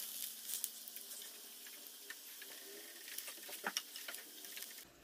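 Oil sizzling faintly in a frying pan, with a few sharp clicks of metal tongs as fried potato slices are lifted out onto a plate.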